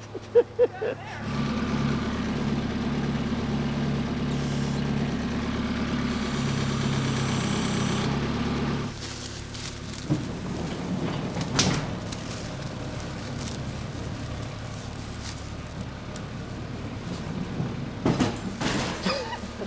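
A motor runs steadily for about seven seconds and then cuts off, as a heavy woodworking machine is lifted up to a box truck's bed. After it stops, a few knocks and clunks come as the machine is handled and rolled on its wheeled base across the truck's wooden floor.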